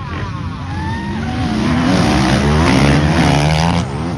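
Motocross bike engines revving up and down as the bikes race past on the track, the sound swelling to its loudest about three seconds in.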